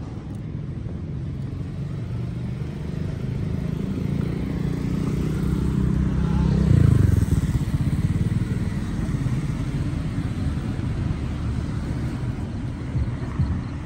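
Road traffic passing close by: a steady low rumble of engines and tyres, with one vehicle approaching and going past about halfway through, rising to a peak and then fading.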